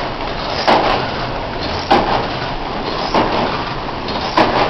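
Water-wheel-driven 1860s sawmill machinery running: a steady rushing noise with a regular knock about every second and a quarter.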